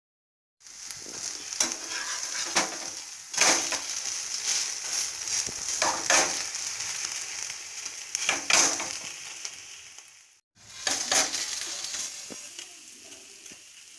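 Grated potato pancake sizzling as it fries in oil in a non-stick pan, with a metal spoon and a spatula scraping and knocking against the pan several times. The sound breaks off briefly about ten seconds in, then the sizzle and scraping resume.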